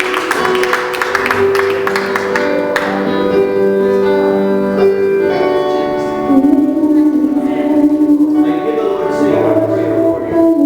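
Church worship music: sustained keyboard chords with a voice singing over them.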